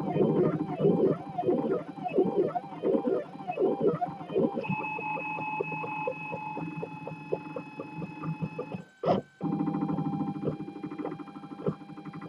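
3D printer's stepper motors whining as the print head moves, the pitch swooping up and down two or three times a second during short back-and-forth moves, then holding steady tones during longer straight moves. The sound cuts out briefly about nine seconds in, then resumes.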